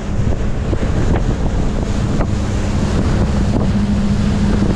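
Yamaha 30 hp four-stroke outboard running at cruising speed, about 18 knots, with a steady low engine hum under the rush of water along the hull. Heavy wind buffets the microphone.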